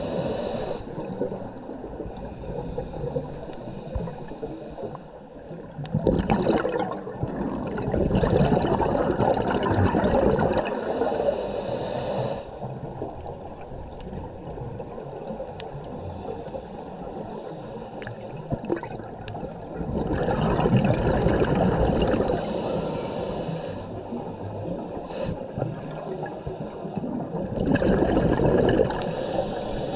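Scuba regulator breathing, heard underwater: a hissing inhale through the demand valve, then a longer burble of exhaled bubbles, repeating over several slow breaths.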